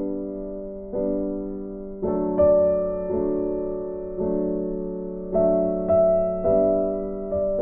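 Slow background piano music: notes and chords struck about once a second, each dying away before the next.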